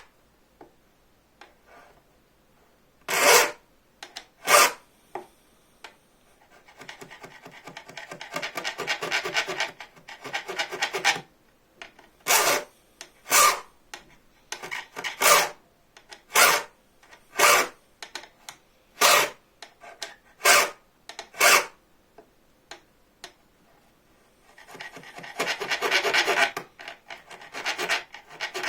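A hand file cutting teeth into a steel bow-saw blade. Single strokes about a second apart alternate with two stretches of fast, continuous back-and-forth filing.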